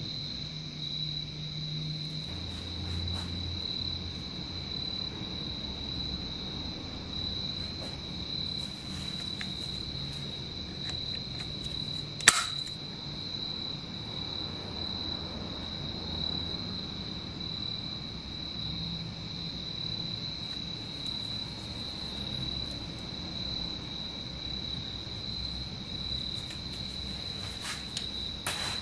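Steady high-pitched cricket trill, with one sharp click about twelve seconds in and a softer click near the end.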